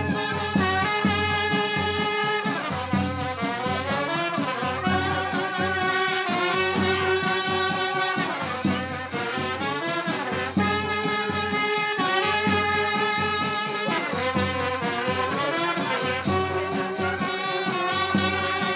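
Brass band playing a tune: horns holding and changing notes over a steady low beat.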